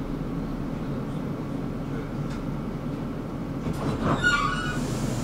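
Tram running on its rails with a steady low rumble, and a brief high-pitched squeal of several tones about four seconds in.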